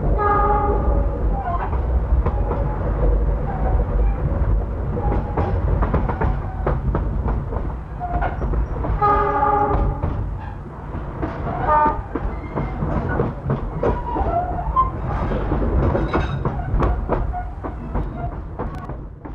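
Passenger train running through a rail yard: a steady low rumble with wheels clicking over rail joints and points, and the locomotive's horn sounding near the start and again about halfway through.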